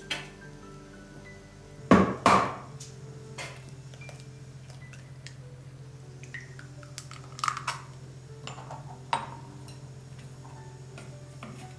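A raw egg knocked twice sharply about two seconds in to crack it, then opened into a wooden bowl with a few light clicks of kitchenware, over soft background music.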